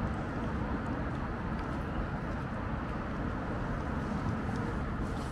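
City street ambience: a steady low rumble of distant road traffic, with a few faint ticks.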